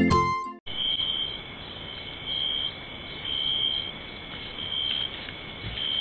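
Night insects calling: a high, thin tone that swells about once a second over a steady hiss, heard through a trail camera's microphone. It starts just after a snatch of guitar music cuts off.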